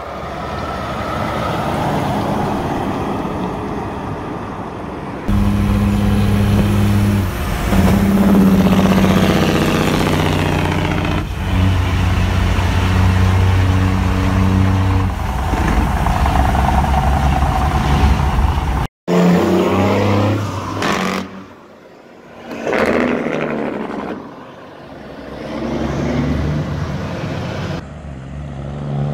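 Semi-truck diesel engines on their jake brakes (compression-release engine brakes), a loud rapid bark, in several clips cut together; the sound changes abruptly about 5 s in and again cuts off sharply about 19 s in.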